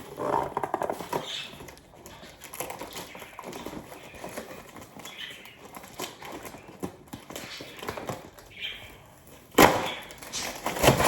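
Cardboard box being torn and wrenched apart by hand, with scattered crackling and scraping and a loud sudden rip about nine and a half seconds in, and another near the end.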